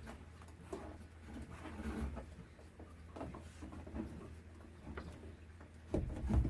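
Light handling noises: scattered small clicks, scrapes and rustles over a low steady hum, with a louder knock near the end.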